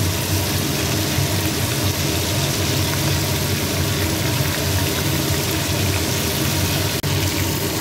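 Chicken pieces frying in hot ghee and oil, a steady sizzle with a low steady hum underneath.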